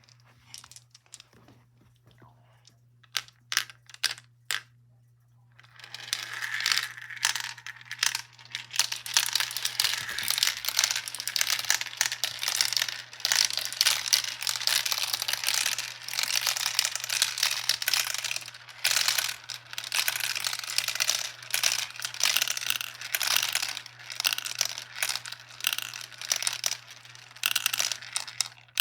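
Marbles clattering in a marble run: a few separate clicks, then from about six seconds a dense, continuous rattle of many small hard knocks.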